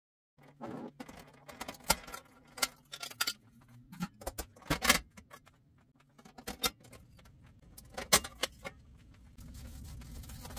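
Metal clinks and rattles from the coil burners and metal drip pans of an electric stove as they are lifted out and set down. Near the end this gives way to a steady rubbing of a cloth wiping the stovetop.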